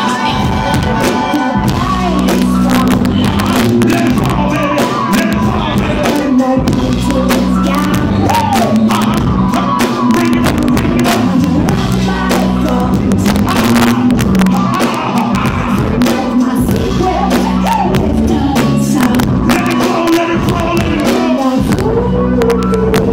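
Live band music heard from the audience in a concert hall: a singer's voice over drums, a steady deep bass line and electronic backing from a DJ's decks.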